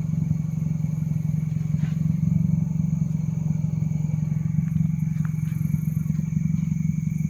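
Vehicle engine idling steadily: a constant low drone with a fine, even pulse. Two faint steady high-pitched tones run above it.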